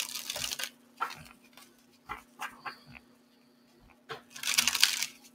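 A deck of oracle cards shuffled by hand: a burst of shuffling at the start and a longer one about four seconds in, with soft taps and clicks of the cards in between.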